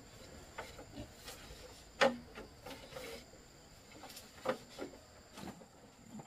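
A series of irregular short knocks and clicks, the loudest about two seconds in and another strong one about four and a half seconds in, over a faint steady high-pitched hum.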